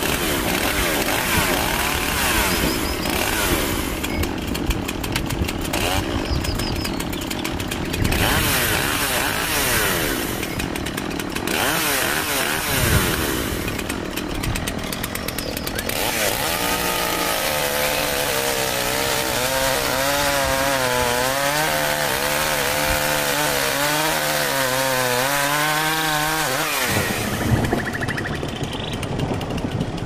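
Two-stroke chainsaw running at high revs, its engine pitch wavering up and down as it works, then cutting off abruptly near the end.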